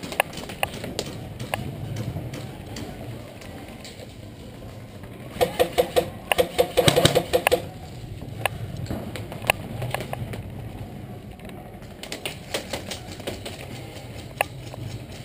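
Airsoft rifle firing a rapid burst of about two seconds midway, with scattered single sharp cracks of shots before and after it.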